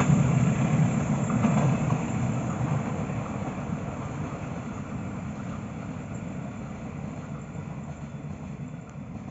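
Passenger train running away on the rails, its rumble of wheels on track fading steadily as it recedes.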